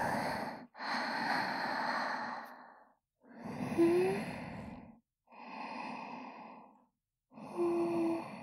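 A woman breathing slowly and audibly close to a binaural dummy-head microphone. There are four long breaths or sighs with short pauses between them, and a soft hum of voice in the later ones.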